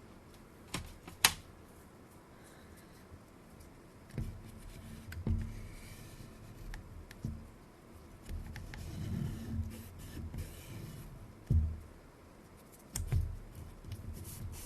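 Small handling noises of a camera and tools on a workbench: a sharp click about a second in, then irregular bumps, knocks and rubbing.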